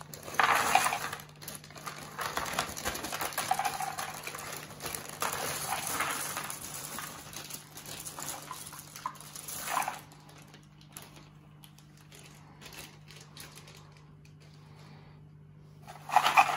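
Cardboard jigsaw puzzle pieces poured from a crinkling plastic bag into a cardboard box tray, a dense rattle of many small pieces for about ten seconds. Then only a few scattered clicks as pieces are handled, and a loud burst of rattling again near the end, over a faint steady low hum.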